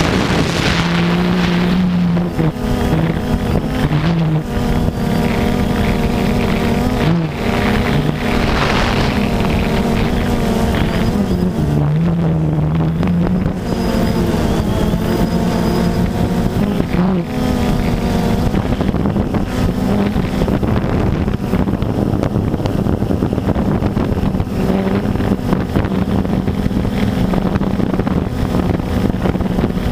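DJI Phantom 2 quadcopter's four electric motors and propellers buzzing in flight, recorded close up from the camera slung beneath it; the pitch steps up and down every few seconds as the motor speeds change. Wind rushes over the microphone.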